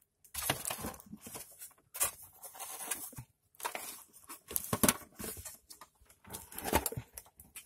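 Hands working at an LCD monitor's housing to pry it open: irregular scraping, clicking and rattling of plastic and metal parts.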